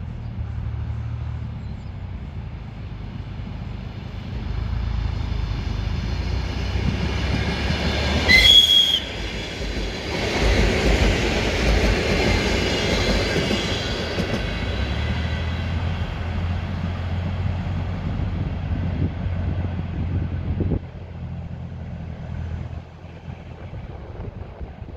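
Electric commuter train (electric multiple unit) approaching and passing close by, its low motor hum giving way to wheel rumble and clatter on the rails. It sounds a short, high horn blast about 8 seconds in, the loudest moment, just before the train goes by, and the rumble fades as it moves away.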